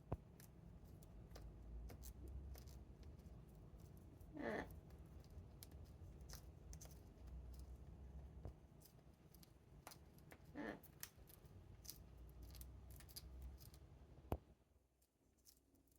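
Parrot chewing and crunching on a leather and wood toy: a quiet scatter of small clicks and snips. There are two short, soft, wavering vocal noises, one about four seconds in and one about ten seconds in, and a sharp click near the end.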